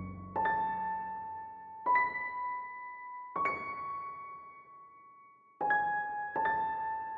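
Background music: a slow, sparse piano melody of single high notes, five in all, each struck and left to ring out and fade.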